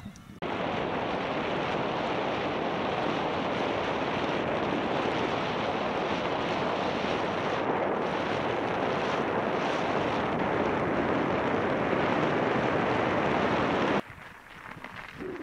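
Steady rushing wind noise on the camera microphone while riding a bike at speed. It starts abruptly about half a second in and cuts off abruptly near the end.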